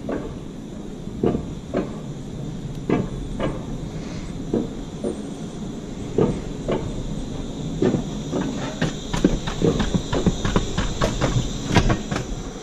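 Alpine coaster sled running along its steel tube track: a steady rolling rumble with irregular clacks and knocks from the wheels on the track, which come more often in the second half.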